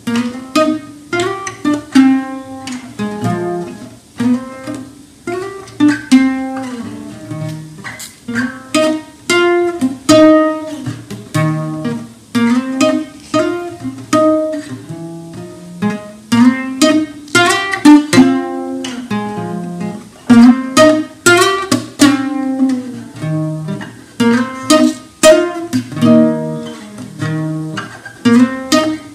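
Mexican bajo, a twelve- or ten-string bass guitar of the bajo sexto family, played solo: a steady stream of picked notes in melodic runs over low bass notes, with the odd strummed chord.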